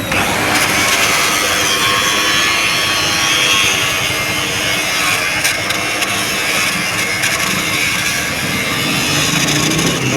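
Angle grinder grinding steel, a steady harsh rasp.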